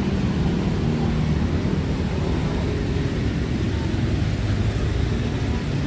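Steady low rumble of city street traffic, with a faint hiss above it.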